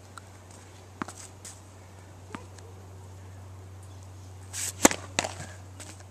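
Tennis serve: a brief swish of the swing, then a single sharp pop of the racket strings striking the ball near the end, followed by a couple of light taps. A few soft taps come earlier, over a steady low hum.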